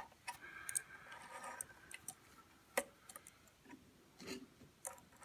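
Faint, scattered clicks and light taps from hands working thread through the guides and take-up lever of a Singer 237 sewing machine, with a sharp click at the very start and another a little before the middle.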